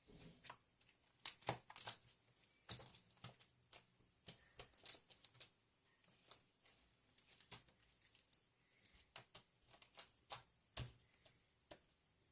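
Irregular light clicks and taps, a few a second, with a handful of louder knocks about a second and a half in and again near eleven seconds.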